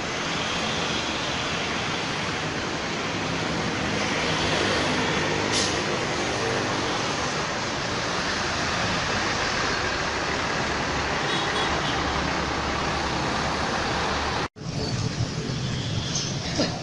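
Steady road traffic noise: passing vehicles' engines and tyres with a low engine hum. About fourteen and a half seconds in it cuts off suddenly and similar, more uneven traffic noise follows.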